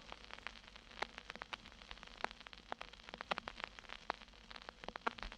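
Vinyl LP surface noise in the quiet groove between tracks: irregular clicks and pops over a faint hiss.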